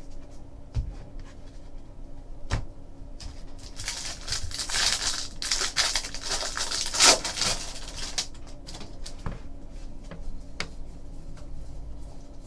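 Baseball trading cards being handled and flicked through by hand: scattered light clicks and taps, with a stretch of sliding, rustling card noise from about four to seven seconds in.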